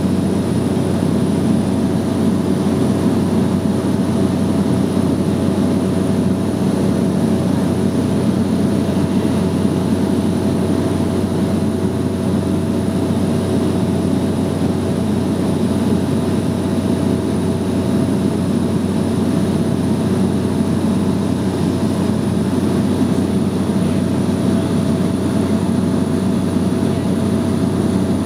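Engine and propeller of a small single-engine high-wing aircraft droning steadily in flight, heard inside the cabin, with a low hum and a faint high whine over it.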